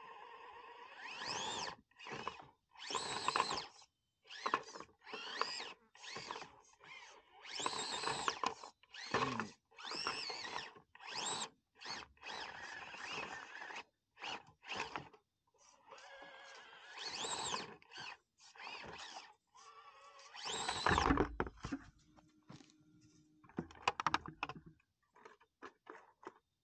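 Axial SCX24 micro crawler's small electric motor and gear drivetrain whining in many short throttle bursts, its pitch rising and falling, with short gaps between them. The loudest burst comes late, with a low thud as the crawler works the rocks.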